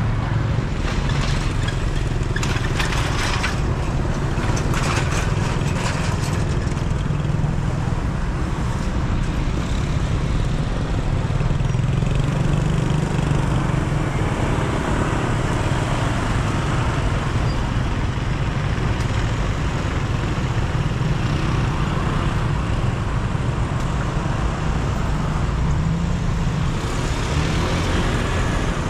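Steady driving noise of a car on the road: a low engine and tyre hum, with a few brief sharper noises in the first few seconds.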